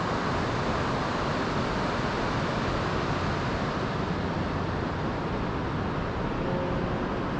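Steady rushing of a river flowing over rapids, an even, unbroken wash of noise.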